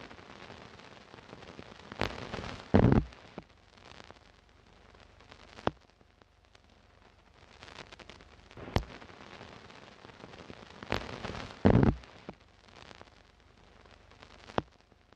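Sharp clicks over a faint hiss, with two heavy low thumps, each coming shortly after a click; the click-then-thump pair happens twice, about nine seconds apart.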